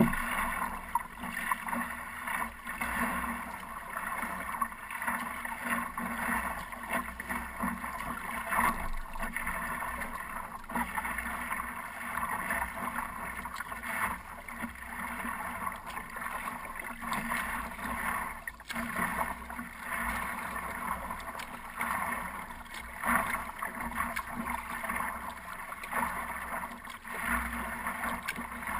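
Water splashing and lapping against the hull of a wooden stand-up paddleboard as it glides over the sea, heard up close from the board's deck, in irregular swells.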